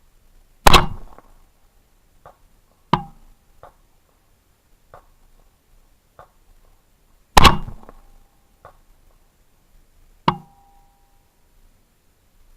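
Two loud AR-15 rifle shots with a SpecOp Mfg upper, about seven seconds apart, each with a short echoing tail. Two quieter sharp reports fall between and after them, the last followed by a brief ringing tone.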